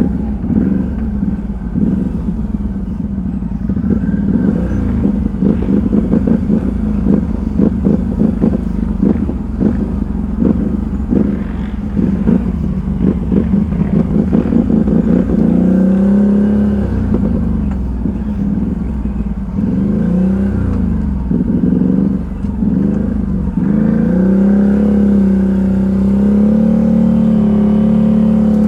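ATV engine running under load, its pitch rising and falling with the throttle, over dense clattering and knocking through the first half. Near the end it settles into a steadier, higher note.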